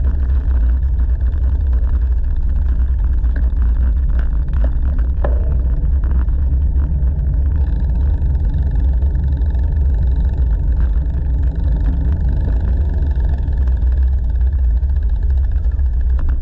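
Wind buffeting the microphone of a bicycle-mounted action camera while riding, a loud, steady low rumble with a few faint clicks from the bike.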